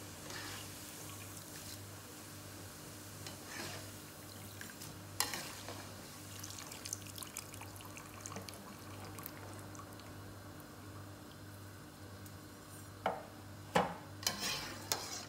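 Thin gram-flour sev deep-frying in a kadai with a faint sizzle of oil, while a metal slotted ladle stirs and scrapes against the pan. Near the end the ladle gives several sharp taps on the pan. A steady low hum runs underneath.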